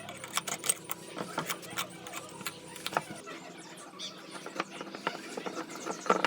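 Irregular light clicks and taps of small hard objects being handled, with a sharper knock near the end.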